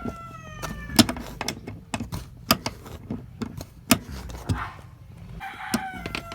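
A cat meowing twice, each call sliding down in pitch, once at the start and again near the end, amid irregular sharp clicks and knocks.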